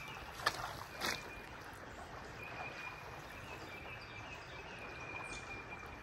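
Faint steady rush of a rain-swollen creek flowing, with two soft knocks about half a second and a second in and a faint thin high tone through the second half.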